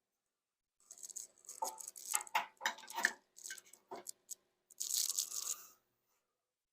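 Hands handling tools and small parts: a quick run of clicks, knocks and scrapes, then a longer rustling scrape about five seconds in.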